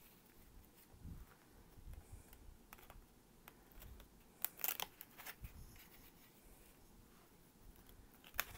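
Sheets of craft paper being handled and sorted by hand: light rustles and taps, with a short cluster of louder crackles about halfway through and another near the end.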